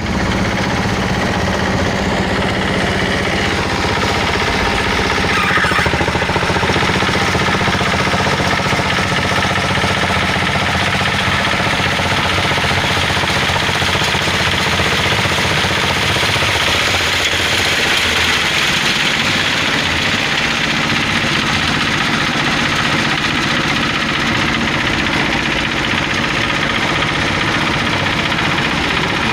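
Diesel engine running steadily, powering a plastic-drying machine whose dryer is heated by the engine's exhaust.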